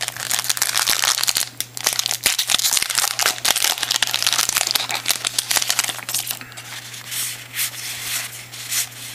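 Foil wrapper of a trading-card pack crinkling and tearing as it is ripped open, dense for about six seconds, then sparser rustles.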